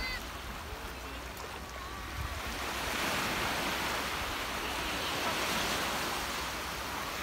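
Small waves breaking and washing up a sandy shore, a steady wash that grows louder about three seconds in.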